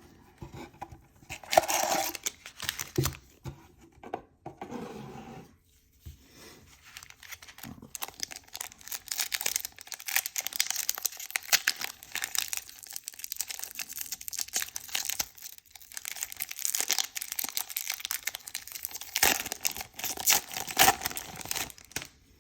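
A foil Pokémon booster pack wrapper being torn open and crinkled by hand, a long stretch of crackly tearing and crumpling, after a few knocks and rustles as the pack is handled.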